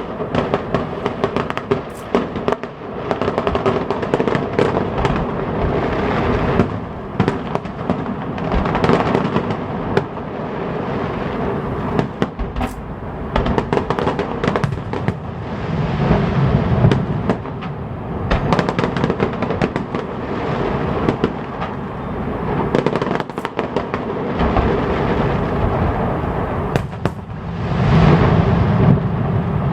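Fireworks display: a dense, continuous run of bangs and crackles, many shells bursting close together, with louder swells around the middle and near the end.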